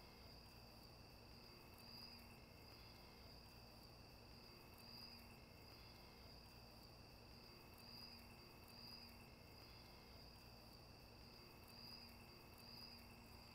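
Near silence with faint, steady high-pitched insect chirring, as of crickets, swelling gently now and then.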